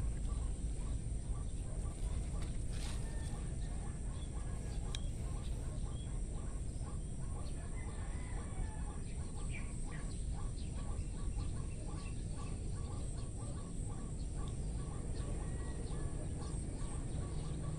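A ground bird clucking in a steady run of short notes, about two or three a second, over a constant low rumble.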